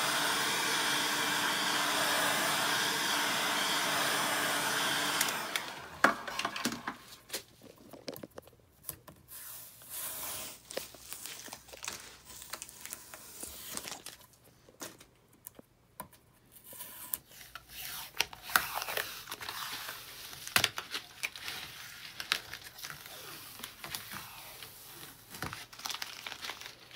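Heat gun blowing steadily on a cricket bat's vinyl sticker to soften its adhesive; it cuts off about five seconds in. Irregular crackling and tearing follow as the sticker is peeled off the bat face and crumpled.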